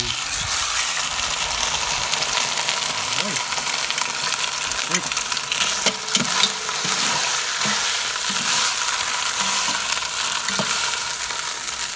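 Corned beef brisket sizzling in a preheated cast iron Dutch oven, the sizzle starting suddenly as the meat goes in and then running steadily. The strong sizzle shows the cast iron is hot enough to sear.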